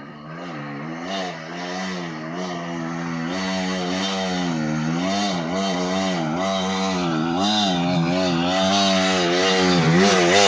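Two-stroke enduro dirt bike engine revving up and down again and again as it climbs a steep slope, getting steadily louder as it approaches and loudest near the end as it passes close by.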